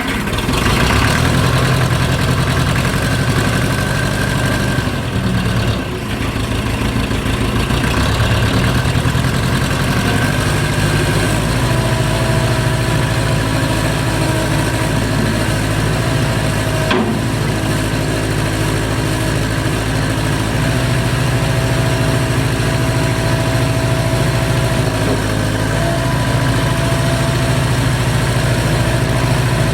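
Case 580CK backhoe loader's engine running steadily at idle just after being started.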